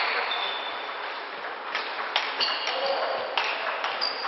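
Table tennis rally: the celluloid ball clicks sharply off the bats and table several times, with irregular gaps.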